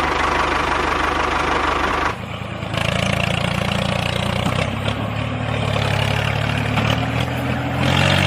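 An engine running steadily at idle, with an even low hum; its sound changes about two seconds in.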